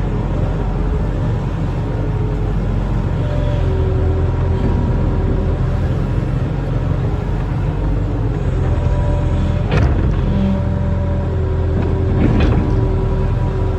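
Barge-mounted excavator's diesel engine running steadily with a thin whine over its low rumble, and two sharp knocks about two and a half seconds apart in the second half.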